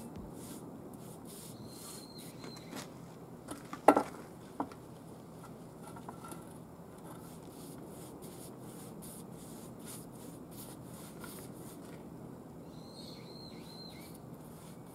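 Quiet background hiss with scattered faint clicks and taps, one sharper knock about four seconds in, and brief high chirps twice.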